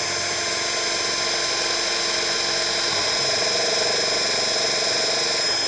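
Electric drill motor running steadily at full speed in reverse, so the bit spins against the wood without cutting a hole.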